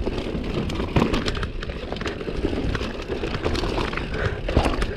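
Mountain bike riding fast down a dirt trail: tyres rolling and skidding over loam and roots, with a steady low rumble and a rattle of the bike. Sharp knocks about a second in and again near the end.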